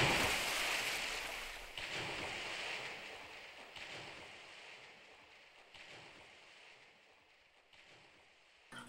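Sound-effect rush of noise like surf or wind that starts suddenly and fades slowly away, with a small fresh swell about every two seconds.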